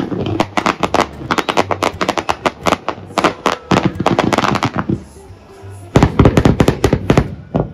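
Fireworks going off in rapid strings of crackling bangs, with a denser, louder volley about six seconds in. Music plays underneath.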